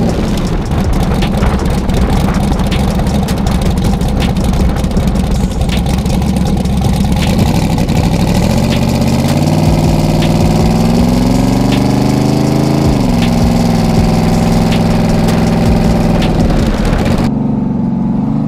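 Turbocharged LS V8 in a Pontiac Trans Am WS6 running while the car is driven on the road, with wind noise over it. The engine note climbs steadily for about five seconds midway, falls sharply, holds, then drops again near the end.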